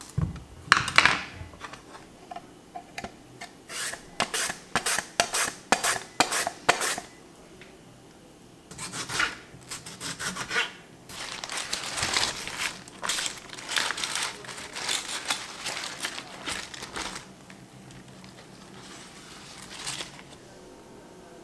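Cucumber being shaved into thin ribbons on a plastic mandoline slicer: a run of quick rasping strokes, two or three a second, for several seconds. After a short pause comes a longer stretch of scraping as a knife slices a tomato on a wooden board.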